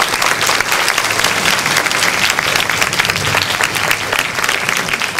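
Audience applauding, a dense, steady patter of many people clapping.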